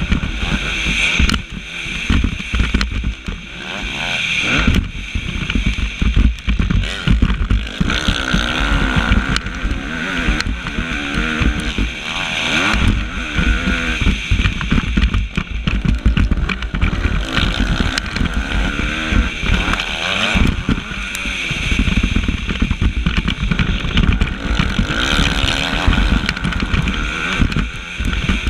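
Suzuki motocross bike engine heard onboard, revving up and dropping off again and again as the throttle is worked on and off around the track. Wind buffets the camera microphone throughout.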